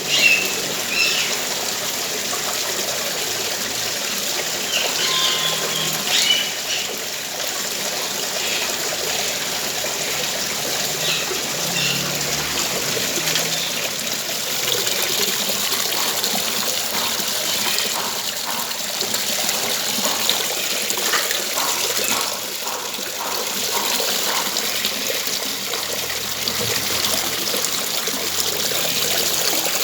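Garden waterfall with water splashing and trickling steadily, with a few bird chirps over it in the first several seconds.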